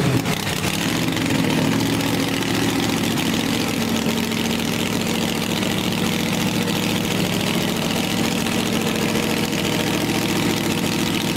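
Dodge dragster's engine idling steadily through short open exhaust pipes during its warm-up, settling at a constant pitch right after a blip of the throttle dies away at the start.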